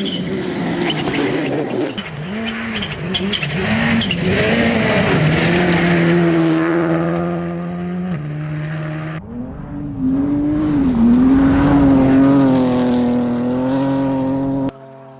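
Rally car engine at full throttle on a gravel stage, the revs rising, falling and holding through gear changes and wheelspin, over gravel and tyre noise. The sound changes abruptly twice as the shot cuts, and drops much quieter near the end.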